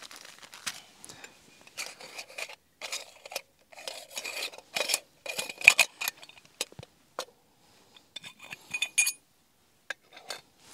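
Stainless steel camping cups and coffee-making gear being handled on rock: irregular metallic clinks and scrapes. The loudest clink comes a little past the middle, and a quick run of ringing clinks follows about nine seconds in.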